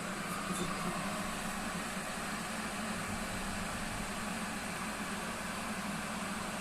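Kitfort KT-654-1 electric kettle heating water: a steady, even hiss over a low hum.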